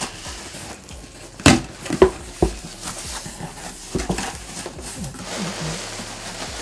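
Cardboard shipping box being opened by hand: three sharp knocks about half a second apart as the flaps are pulled open, and another about four seconds in. Near the end there is rustling as the plastic-wrapped contents are handled.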